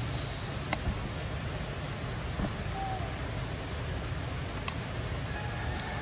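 Steady outdoor background noise with a low rumble, broken by two sharp clicks and a brief faint chirp near the middle.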